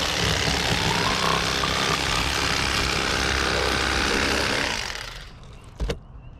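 Electric fillet knife running steadily as it cuts through a crappie, then switched off about five seconds in. A single sharp click follows shortly after.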